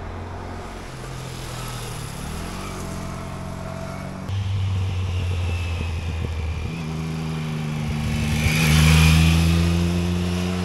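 Motorcycle engines accelerating through hairpin bends, the engine note rising in pitch. In the second half one bike's rising note grows louder to a peak about nine seconds in as it passes close by.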